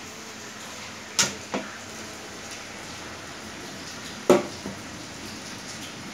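Two pairs of sharp knocks, the second pair about three seconds after the first, over a steady hiss.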